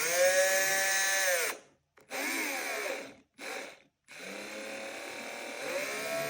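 A Bosch EasyDrill 1200 12 V cordless drill driver's motor running in short trigger pulls, its whine rising in pitch as it speeds up and falling as it slows. There are three brief runs with pauses between, then a longer steady run from about four seconds in. The drill is running on its factory pre-charge.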